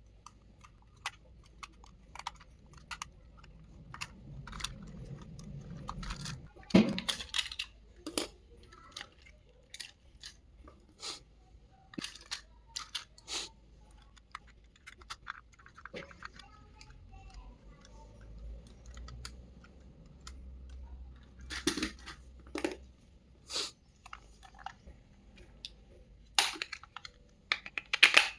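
Toy packaging being handled and opened: irregular clicks, taps and crinkles, with a few louder clusters of handling noise.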